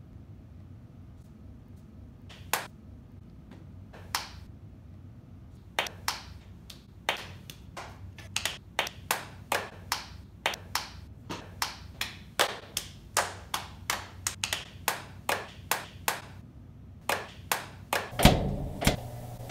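Two people's hands slapping together in a hand-clapping game: a couple of single claps, then a quick, steady run of palm claps at about two to three a second. A louder thump and rumble near the end.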